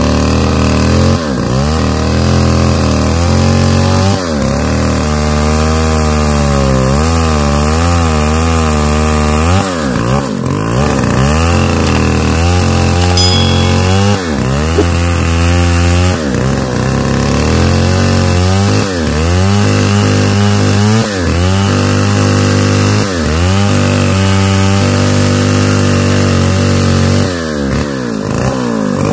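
Stihl 070 two-stroke chainsaw ripping lengthwise through a large pine log at full throttle. The engine pitch sags several times under the load and recovers.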